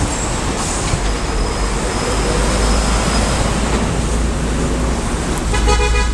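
Street traffic noise, a steady rumble of passing vehicles, with a short vehicle horn toot near the end.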